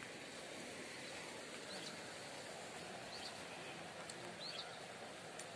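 Faint outdoor ambience: a steady hiss with a few brief, high bird chirps about two, three and four and a half seconds in.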